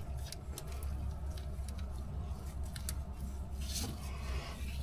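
Faint scattered clicks and a brief rustle of parts being handled over a steady low hum.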